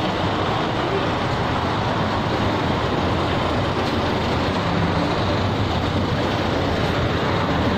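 Steady traffic noise from a nearby expressway, an even rushing hum of passing vehicles with no single event standing out.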